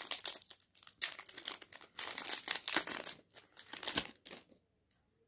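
Foil booster-pack wrapper being torn open and crinkled in the hands, a dense crackling rustle that stops about four and a half seconds in.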